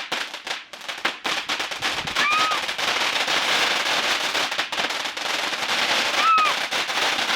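Fireworks crackling: a dense, continuous run of rapid pops and crackles over a fizzing hiss.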